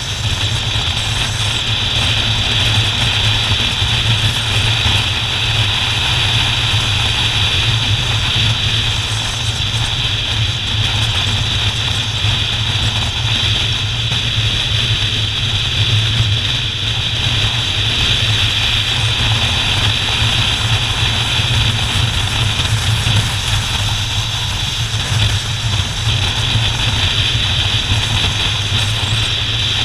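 Motorcycle running at a steady cruising speed, a constant engine drone under steady road noise.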